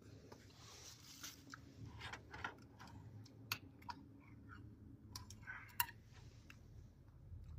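A person eating: faint, irregular clicks of an eating utensil against the dish, with chewing.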